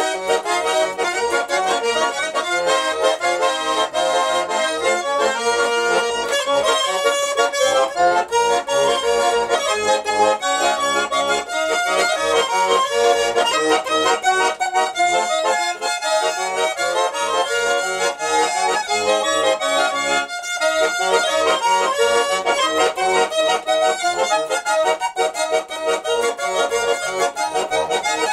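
Garmon (Russian button accordion) being played: a tune of quick, closely packed notes with a short break about two-thirds of the way through.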